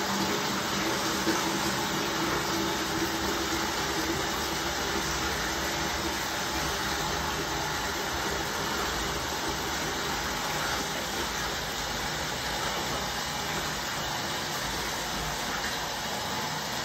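Bathtub faucet running a steady stream of water into a plastic bucket, splashing as the bucket fills.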